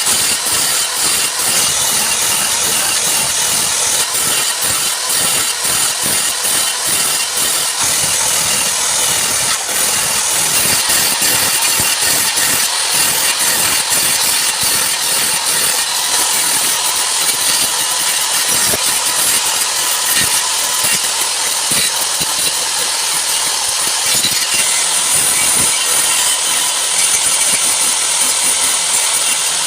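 A woodworking power tool running steadily, its noise a dense high-pitched hiss.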